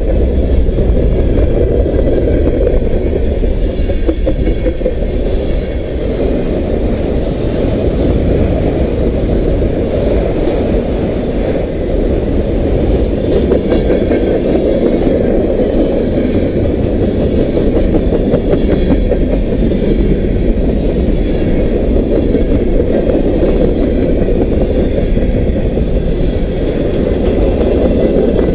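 Union Pacific freight train's cars rolling steadily past at about 32 mph: a continuous low rumble with wheels clacking over the rails.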